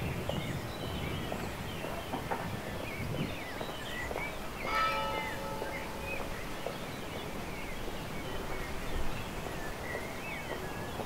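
Small birds chirping in short rising and falling calls, with a single bell stroke ringing about five seconds in and fading over a second or so.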